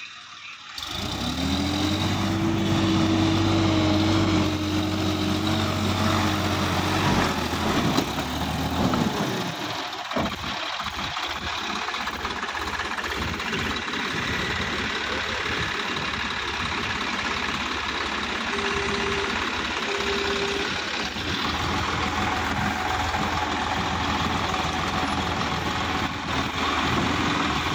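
Sonalika DI-50 RX tractor's diesel engine running under load as the tractor climbs out of a field with its front wheels lifting. The note is steady for the first several seconds, then turns rougher, with a few knocks about ten seconds in.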